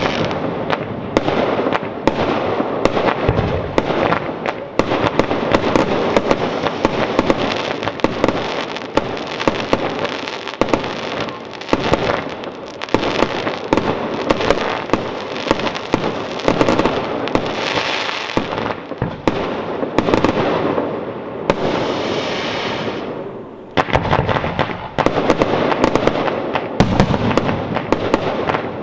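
Fireworks display in a continuous barrage: many sharp bangs over a dense crackling. The bangs ease briefly about three-quarters of the way through, then pick up again.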